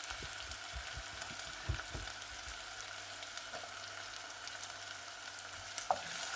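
Onion, ginger and garlic frying in very hot oil, a steady sizzle with scattered small crackles. A few soft low knocks come in the first couple of seconds.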